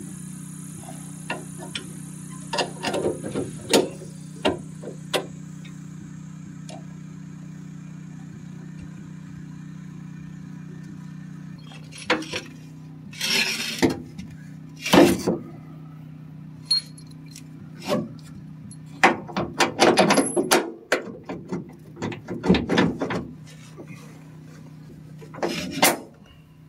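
Metal clanks, knocks and rattles from hand tools and leaf-spring suspension parts being worked under a pickup truck's rear axle, sparse at first and coming in busy clusters in the second half, over a steady low hum.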